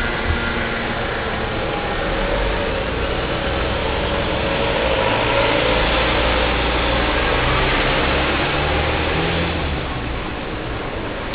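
Steady city street traffic, with motor vehicle engines running, heard through a handlebar-mounted camera on a moving bicycle, which adds low rumble and rushing noise. It is a little louder in the middle and eases near the end.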